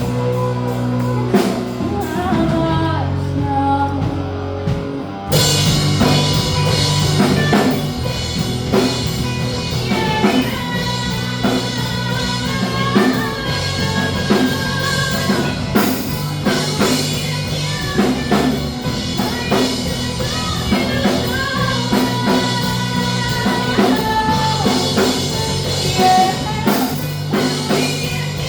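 Rock band playing with a lead singer, guitar and drum kit. A quieter, sparser passage gives way about five seconds in to the full band with drums and cymbals.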